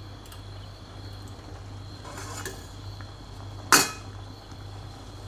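A metal ladle clinks sharply once against a steel cooking pot of dal, about two thirds of the way in, after a brief scrape. A steady low hum runs underneath.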